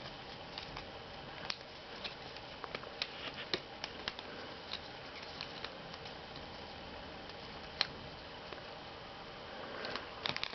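Origami paper being folded and creased by hand: scattered light crinkles and taps, with a longer rustle near the end. A faint steady hum lies underneath.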